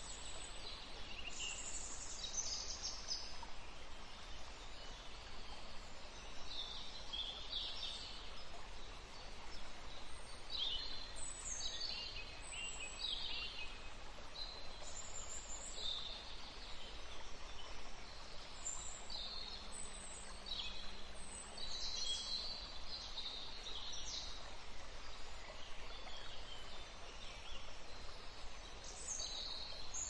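Caged canaries and Lady Gouldian finches chirping and calling in short high bursts, several birds overlapping, over a steady background hiss.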